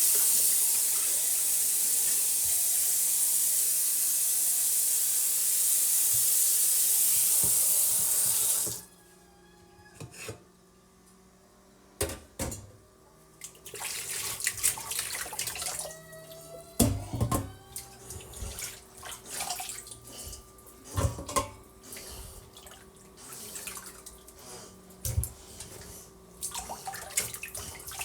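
Tap running steadily into a sink, shut off sharply about nine seconds in. After it come scattered knocks, clinks and short splashes of things being handled in the sink.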